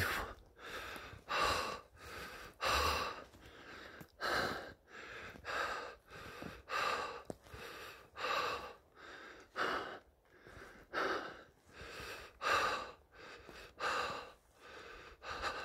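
A man's heavy, laboured breathing, in and out, with a strong breath about every second and a half. He is winded from excitement and high elevation.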